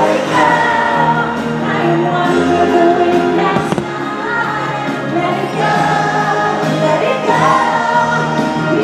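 Fireworks-show music with a choir singing held, sustained chords. A single sharp firework crack comes about three and a half seconds in.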